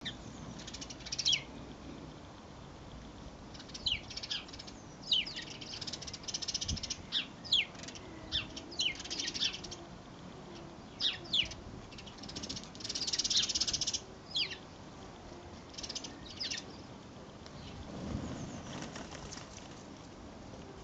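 Small birds singing and chirping: short high notes, many sweeping quickly downward, with a couple of fast trills, repeating with short gaps.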